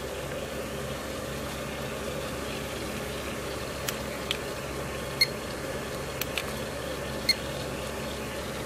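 A handheld infrared thermometer beeps twice as it takes readings of hot water in a rice cooker pot, with a few soft clicks around the beeps. A steady hum and hiss runs underneath.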